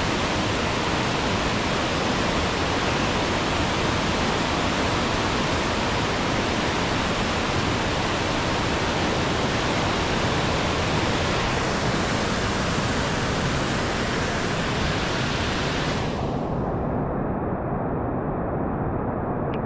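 Fast, high river rushing over rapids: a loud, steady roar of water. Near the end the hiss in the sound drops out abruptly, leaving a duller rush.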